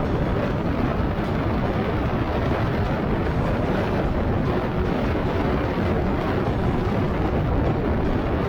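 Yamaha R15 V4's 155 cc single-cylinder engine and the rush of air on a motorcycle riding at speed, a steady dense roar with no gear changes or revving heard.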